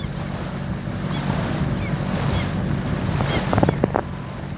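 Wind blowing across the microphone over the steady low hum of a small motorboat's engine and water rushing along the hull while the boat is under way. A few short knocks come near the end.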